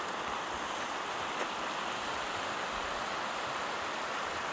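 Creek water rushing steadily over rocks and shallow rapids. The creek is running with snowmelt runoff.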